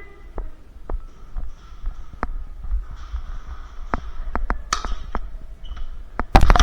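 Irregular sharp clicks and taps over a steady low rumble, with a loud cluster of cracks close together near the end.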